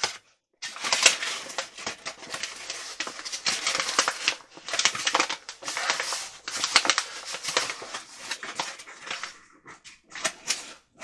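Paper flour bag crinkling and rustling as hands grip and work its top: a dense crackle of many small clicks that thins out to a few separate crackles near the end.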